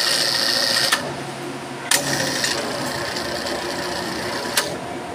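Electric hoist with a newly fitted brake lining running under test: a steady motor whine and hum for about the first second, then sharp clicks about a second in, near two seconds and near the end, with a lower steady hum between them.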